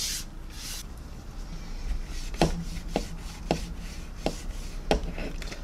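A hand wiping over a plastic model aircraft wing to clear off excess panel line wash, a soft rubbing at first, then a series of light taps about every half second.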